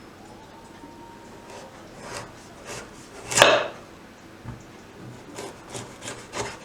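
A series of irregular scraping strokes from raw celeriac being worked by hand with a blade or grater. The loudest, longest stroke comes about three and a half seconds in, followed by a quick run of four shorter strokes near the end.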